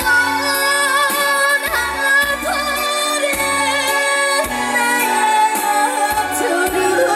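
A female voice singing a slow trot ballad with wide vibrato, over steady instrumental accompaniment.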